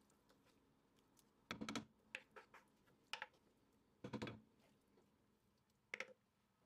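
Wooden spoon scraping and tapping in a frying pan as fried onion sauce is spooned out: a handful of short scrapes and knocks with pauses between, the longest a little after four seconds in.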